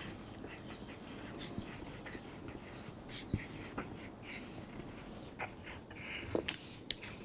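Pencil scratching on paper in short, irregular strokes while the outline of a floral pattern is drawn.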